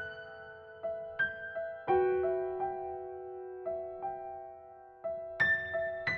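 Solo digital piano playing a slow, gentle piece: single notes and soft chords in the middle register, each left to ring and fade. A chord comes in about two seconds in, and a louder group of notes arrives near the end.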